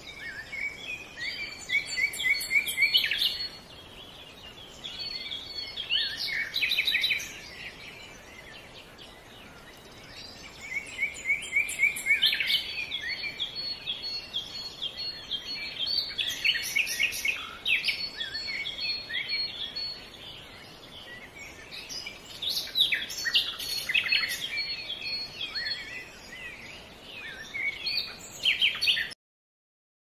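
Small songbirds singing in bouts of quick repeated chirps and trills every few seconds, over the faint steady trickle of a shallow woodland brook. The sound cuts off abruptly near the end.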